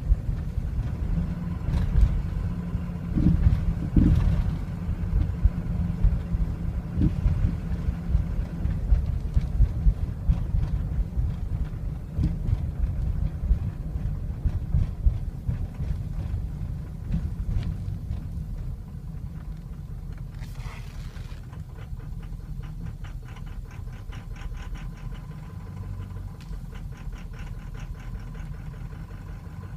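Ford 6.0L Powerstroke V8 turbo-diesel idling roughly, its running uneven with irregular surges and knocks; about two-thirds of the way through it drops quieter and settles into a steadier idle with a fine, rapid ticking. The rough, stumbling idle is the fault that appears as the engine warms up.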